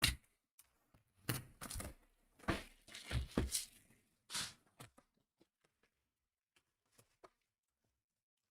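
Paper or plastic card packaging being torn and crinkled in a few quick rustling bursts, opening with a sharp knock. Only light, scattered ticks of cards being handled follow in the last few seconds.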